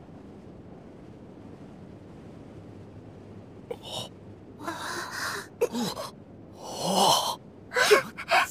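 A quiet low hum for the first few seconds, then a run of short breathy vocal sounds, gasps and exhalations, from a character's voice.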